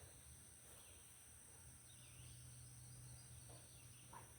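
Near silence: faint outdoor background with a steady low hum and a steady high hiss.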